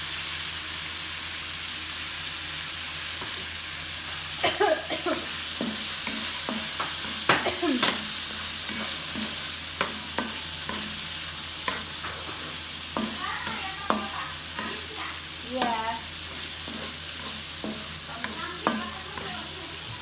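Squid sizzling as it fries in a pan, stirred with a spatula, giving a steady sizzle with scattered sharp clicks and scrapes.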